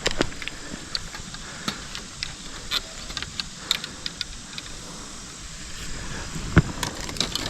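Scattered light clicks and knocks of fishing gear being handled, with one louder thump about six and a half seconds in.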